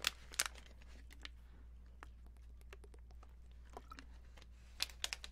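Plastic water bottle being uncapped and drunk from: two sharp clicks of the cap twisting open at the start, faint small clicks while drinking, and a quick cluster of plastic crackles near the end.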